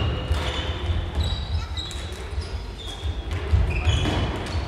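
Indoor floorball game: players' shoes squeaking on the wooden sports-hall floor in short, scattered high squeaks, with occasional sharp knocks of sticks and ball and a steady low rumble of the hall.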